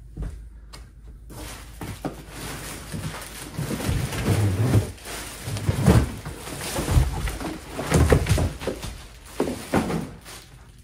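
Cardboard packing being pulled out and handled: crackling, scraping rustle with several dull thumps.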